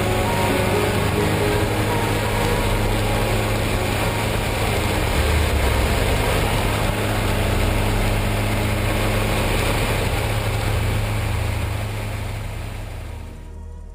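Motorcycle engine running steadily under way, with rushing wind and road noise. The sound fades out over the last few seconds.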